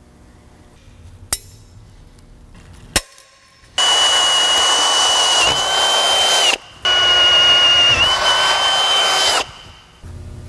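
Cordless drill boring out holes in a metal bracket strap clamped in a vise, enlarging them a couple of bit sizes. Two knocks come first, then two runs of drilling about three seconds each with a brief pause between, carrying a steady high whine from the bit cutting the metal.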